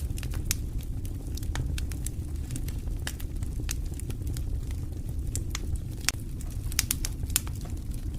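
Wood campfire burning, with frequent irregular sharp crackles and pops over a steady low rumble of the flames.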